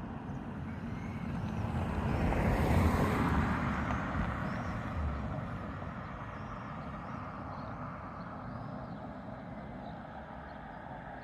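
A motor vehicle passing by on the road: it grows louder to a peak about three seconds in, then fades slowly away.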